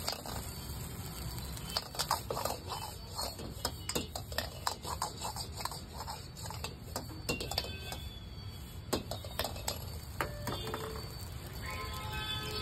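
Steel ladle clanking and scraping against an iron wok as fried rice is stirred and tossed, in quick irregular knocks, over a steady low rumble.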